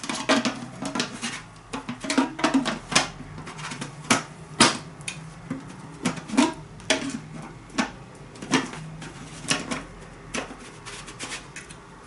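Irregular plastic clicks and knocks as the screw cap of a humidifier's plastic water tank is fitted and turned by hand and the tank is handled, several a second at first, thinning out near the end.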